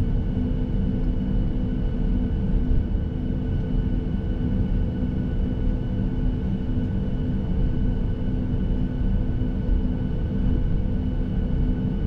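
Boeing 737-800's CFM56-7B engines running at taxi power, heard inside the passenger cabin: a steady rumble with a constant hum and faint whine over it.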